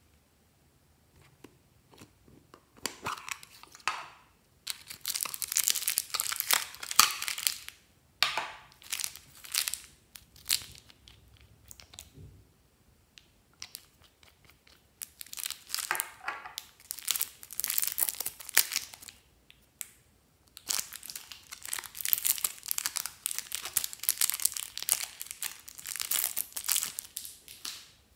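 Clear plastic packet crinkling and rustling in several bouts as it is handled and opened, with quiet gaps between.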